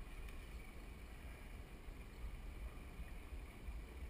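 Wind buffeting the microphone in an uneven low rumble, over a steady faint hiss of open sea.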